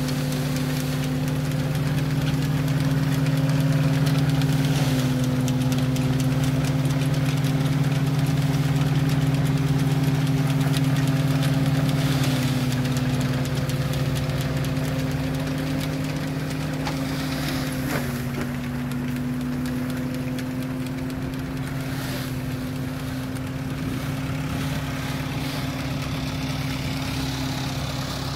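A 1928 threshing machine running steadily, belt-driven by a tractor. It makes a constant, even-pitched hum that dips slightly in pitch a few times as it takes up load.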